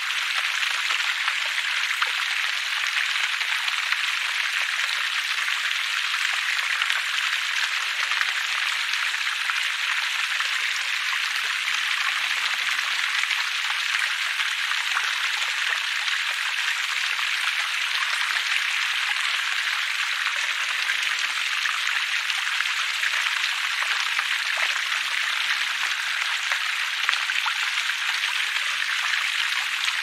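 Small forest stream splashing over rocks in little cascades: a steady, even rush of water with no low rumble.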